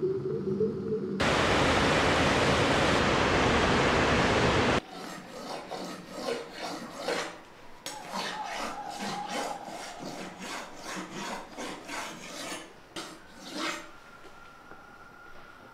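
A loud, steady hiss lasts about three and a half seconds and cuts off sharply. It is followed by a kitchen knife being drawn repeatedly across a wet sharpening stone on a wooden table, a rasping scrape at about two strokes a second that stops near the end.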